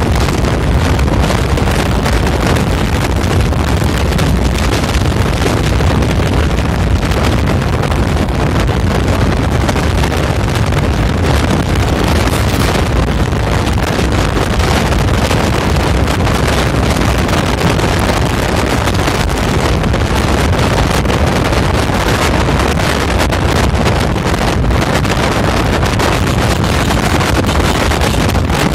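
Wind rushing and buffeting over the microphone of a fast-moving open vehicle, mixed with road and traffic noise; loud and steady.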